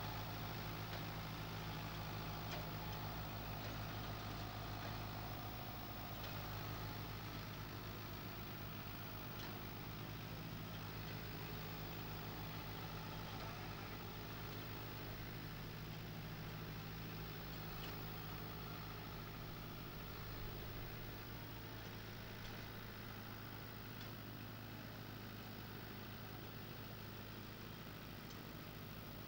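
Kubota M7950 tractor's diesel engine running steadily, with no revving, as it slowly pulls a two-axle trailer.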